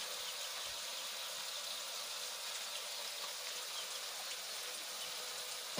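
Chili and shallot spice paste sizzling steadily in hot oil in a wok, left to fry until the paste reddens.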